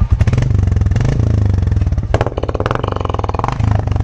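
Royal Enfield Classic 350 Reborn's single-cylinder engine heard at the exhaust, running with a fast, even train of exhaust pulses. It is revved twice: briefly about half a second in, and longer from about two seconds to three and a half.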